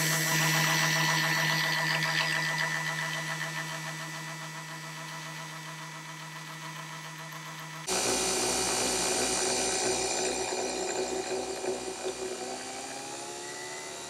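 Coffee machine running as it dispenses coffee into a mug: a steady mechanical hum. About eight seconds in the sound changes abruptly, and near the end the hum's pitch rises.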